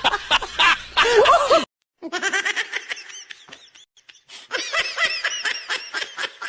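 Laughter sound effect: a hearty laugh that cuts off abruptly about a second and a half in, then after a brief gap a thinner, high-pitched cackling laugh made of rapid repeated pulses, about six a second.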